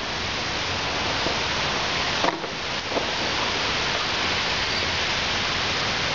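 Steady hiss of rain falling and running water, with a short knock about two seconds in and a fainter one a second later.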